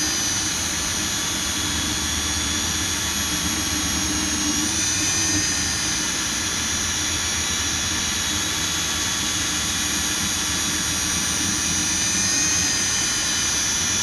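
Electric drill spinning a round chainsaw file against the cutters of a Stihl Farm Boss chain: a steady high motor whine with the file grinding on the steel teeth.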